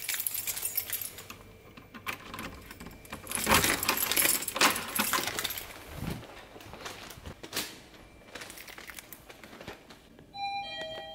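Keys jangling amid clicks and rattles of a door's lever handle and lock, with handling noise. Just before the end, an elevator chime sounds a few short tones.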